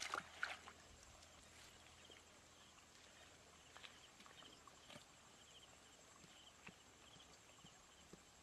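Rustling and crackling of weeds being pulled up by hand in the first half second. Then mostly near silence, with a few soft clicks from hands working in mud and faint, high chirps repeating in short trills in the background.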